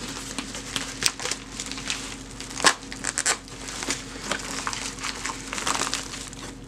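Padded plastic bubble mailer crinkling and crackling as hands pull and tear at it to work a cardboard box out, with irregular sharp crackles, the loudest about two and a half seconds in.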